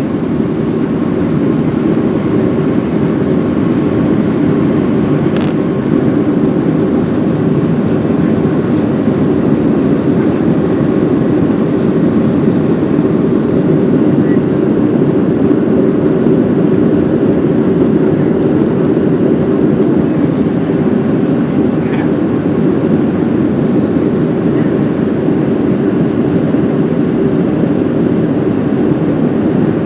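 Steady, loud drone of a Southwest Boeing 737's jet engines and rushing air, heard from inside the passenger cabin.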